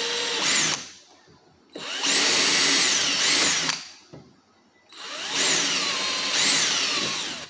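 20-volt cordless drill with a 3/16-inch bit boring small screw holes into wood. The motor whine comes in three runs of about two seconds each, with short silent gaps between them, and its pitch slides up and down within each run as the trigger is worked.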